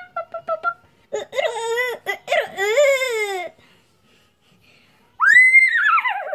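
A child's high voice making play sounds for toy animals: short squeaky cries, then a run of wavering wailing cries, and about five seconds in one long high call that rises then falls, like a whinny.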